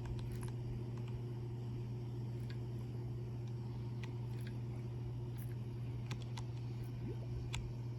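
A steady low hum, with scattered faint clicks and ticks over it.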